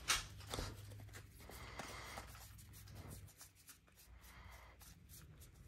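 A stack of trading cards being fanned and slid through by hand. Two sharp card snaps come in the first second, followed by faint papery rubbing and light ticks as the cards slide over one another.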